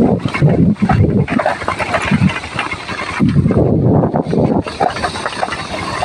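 Wind buffeting the microphone of a moving vehicle in uneven gusts, with the vehicle's engine running underneath.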